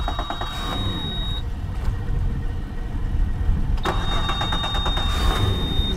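Twin Suzuki four-stroke outboard motors running steadily at low speed. A thin high steady beep sounds twice over the engines, first for about a second and a half, then again for the last two seconds.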